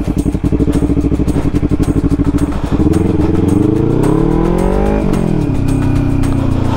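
Motorcycle engine heard from the rider's seat, running at steady low revs with even exhaust pulses. About three seconds in, the revs climb for two seconds, then drop sharply at a gear change and settle to a steady run.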